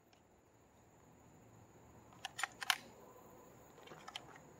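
Faint, sharp mechanical clicks from handling a Glock 17 in a carbine chassis: a cluster of three a little over two seconds in, then a few lighter ones near the end.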